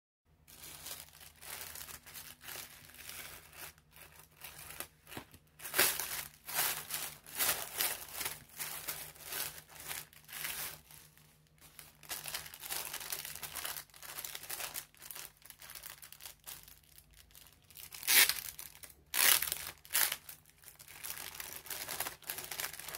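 Clear plastic bag crinkling and rustling as hands handle it, in irregular bursts that are loudest about six seconds in and again around eighteen to nineteen seconds.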